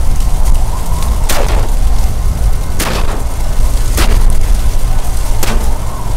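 Four shotgun shots at passing ducks, a second to a second and a half apart, over heavy wind buffeting the microphone.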